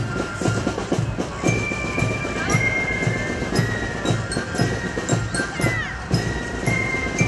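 German fife-and-drum marching band (Spielmannszug) playing a march. High held fife notes, with a few slurred runs, sound over a steady drum beat of about two strikes a second.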